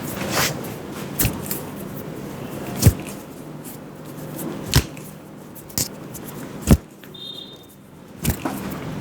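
Hand slaps of a vigorous head massage: about seven sharp smacks, spaced a second or two apart, over a steady background hum. A short high electronic beep sounds about seven seconds in.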